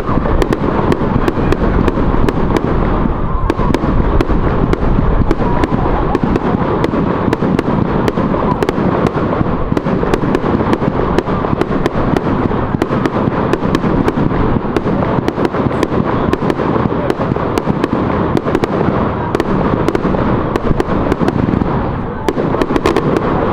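Fireworks display going off in a dense, continuous barrage of cracks and bangs, many a second, over a deep rumble. It eases off a little near the end.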